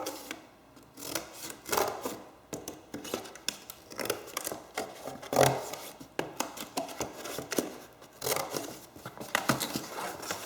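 Scissors cutting a sheet of material in a run of irregular snips.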